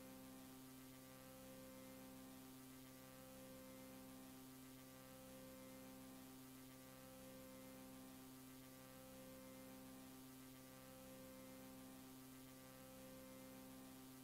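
Near silence: a faint steady electrical mains hum with light hiss, as on a quiet stretch of VHS tape playback, one low hum tone pulsing on and off about once a second.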